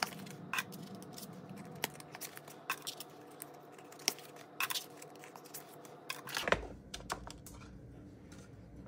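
Clear plastic cash envelopes crinkling and paper bills rustling as folded notes are pulled out and laid on a pile, with irregular light clicks and taps. A brief sliding swish comes about six and a half seconds in.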